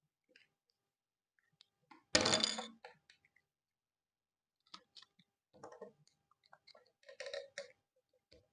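Plastic and diecast model kit parts being handled and pressed together by hand: scattered light clicks and taps, with one louder clatter lasting under a second about two seconds in.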